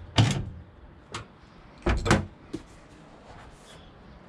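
Clunks and knocks from handling the Toyota MR2's rear engine lid as it is lowered and checked for fit: one clunk at the start, a lighter knock about a second in, and a sharp double clunk about two seconds in.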